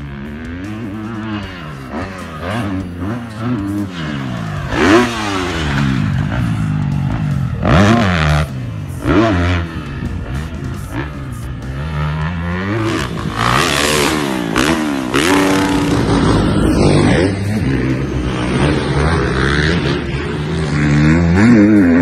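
Dirt bike engine revving up and down over and over as the rider works the throttle through jumps and turns. A few loud rushes of noise come through around the middle.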